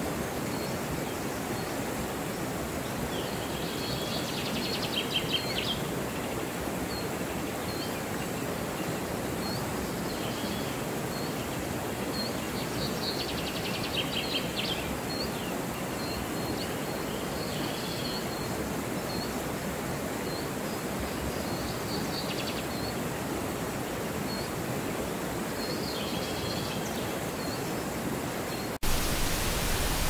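Steady rush of churning water, with small birds chirping faintly and now and then trilling over it. About a second before the end it cuts abruptly to a louder, brighter rush.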